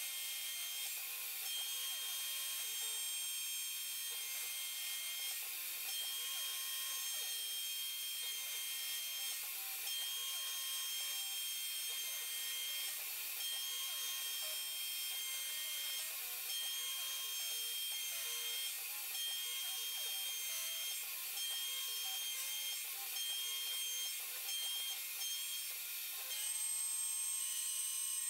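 Openbuilds C-Beam-based CNC router milling an aluminium block with an end mill: a steady high-pitched cutting sound with a thin tone that breaks off and returns every second or so as the cutter moves, a little louder near the end.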